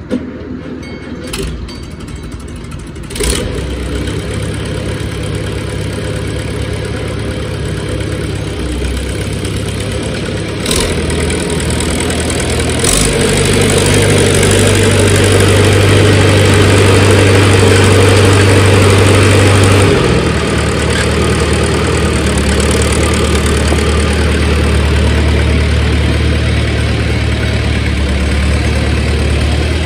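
Farmall Super C tractor engine running as it is driven. It gets louder and faster from about the middle, then drops back to a steady lower idle. A few sharp clanks come in the first half.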